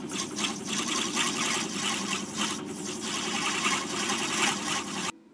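Metal lathe turning down a phosphor bronze bar: the spinning bar and cutting tool give a steady, rough cutting noise with a fine fluttering rhythm, which cuts off suddenly near the end.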